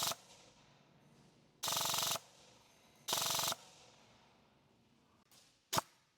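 Lancer Tactical Gen4 airsoft electric rifle with a brushless motor firing short full-auto bursts, each about half a second long: the gearbox cycling at a high rate of fire. A burst ends just at the start, two more follow about a second and a half apart, and a single sharp snap comes near the end.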